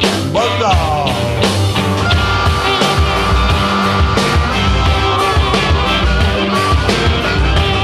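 Raw blues-rock music, an instrumental stretch: electric guitar and drums over a steady beat. The guitar bends notes about half a second in, then holds a long high note for a couple of seconds.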